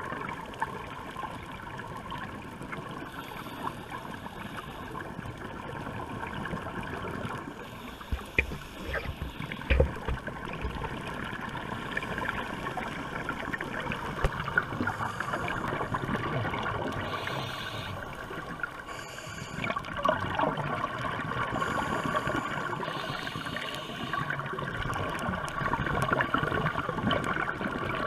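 Underwater ambience picked up through a camera housing: a steady muffled water hiss and gurgle, swelling now and then with scuba exhaust bubbles, and a few sharp knocks about eight to ten seconds in.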